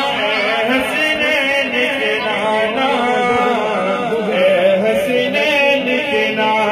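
A voice chanting a naat, a devotional poem in praise of the Prophet, in long wavering melodic notes.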